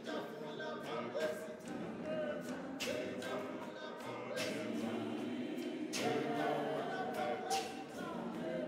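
Men's choir singing a Zionist church hymn a cappella in several-part harmony, with a sharp beat about every one and a half seconds.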